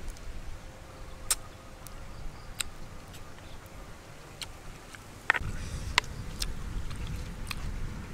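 A metal spoon clicking and scraping against a wooden tray of food as a spoonful is scooped up: scattered sharp clicks, with a low rumble of the tray being handled from about five seconds in.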